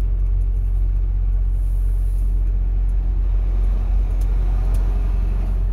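Steady low rumble of a semi-truck's engine and road noise, heard from inside the cab while driving.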